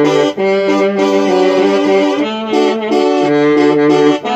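Banda-style brass and saxophone sample played as chords on a synthesizer keyboard: a run of held chords changing every second or so over a low sustained bass note.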